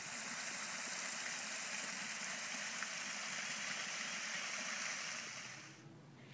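Small creek waterfall spilling over rocks into a pool: a steady rush of water that fades out near the end.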